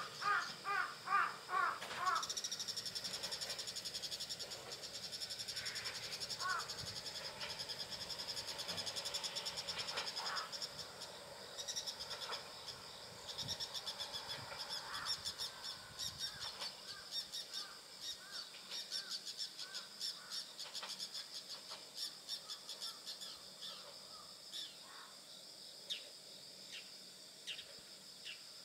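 A crow cawing about six times in quick succession at the start. Insects keep up a steady high trill, with scattered short chirps, through the rest.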